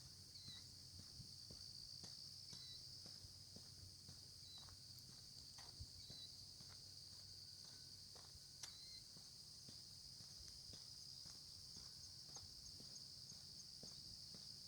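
Faint insect chorus: a steady high-pitched trill of crickets. Soft, irregular footsteps can be heard along the lane.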